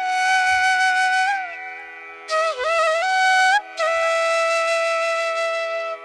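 Background music: a solo flute melody of long held notes with slides and bends between them, over a steady drone.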